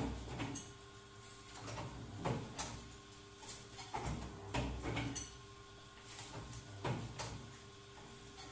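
Double-die paper plate machine running, its dies pressing and releasing in repeated strokes: clunks, often in pairs, about every two seconds, over a steady motor hum.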